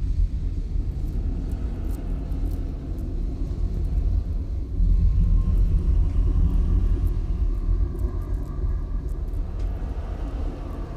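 A steady low rumble with no speech, swelling slightly about five seconds in.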